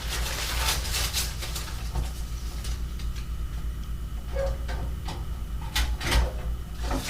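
Irregular rustling and light clicks of things being handled, over a steady low electrical hum.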